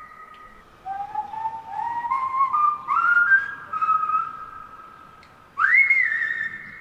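A whistled tune: long held notes that step upward one after another, a short pause, then a note that slides up and is held.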